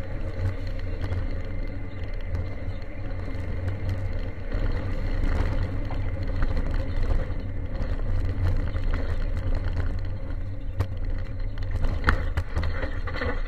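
Ford Sierra Cosworth 4x4's turbocharged four-cylinder engine running hard on a gravel stage, heard from inside the cabin, with gravel and the rough surface rattling underneath. There are a couple of sharp knocks near the end.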